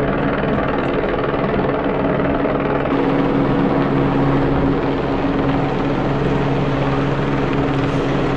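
Search-and-rescue helicopter flying low overhead, its rotor and turbine giving a loud, steady drone.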